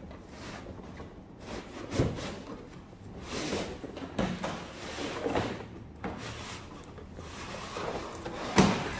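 Cardboard toy-box sleeve being slid off its inner box: cardboard scraping and rubbing against cardboard, with several knocks and thumps, the loudest near the end.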